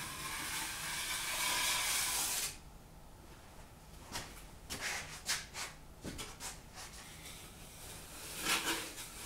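Steel drywall knife scraping joint compound along a composite outside corner bead: one steady scrape for about two and a half seconds, then several short, quieter strokes.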